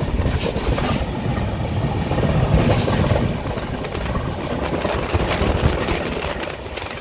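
Goa Sampark Kranti Express passenger train running on the rails: a steady low rumble with many small clacks from the wheels, easing slightly near the end.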